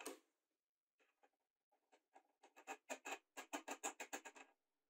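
A light knock as a plywood disc is set into a wooden jig, then a quick run of small clicks and scrapes of wood and metal, about five a second and getting louder, as a bolt and nut are fitted into the disc.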